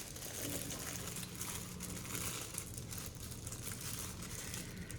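Plastic packaging crinkling and rustling steadily as it is handled.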